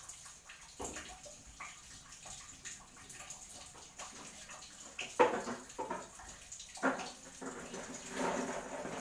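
Cooking liquid simmering and sizzling in a wok of sautéed silk squash and egg, a steady hiss with small crackles. Louder noises come in about five seconds in and again for the last couple of seconds.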